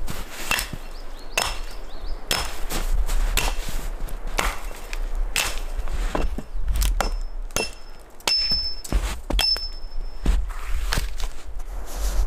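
Axe chopping a dead branch: a run of sharp wooden strikes, about one a second.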